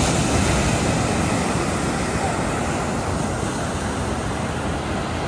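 Steady rushing noise of ocean surf, with wind buffeting the microphone.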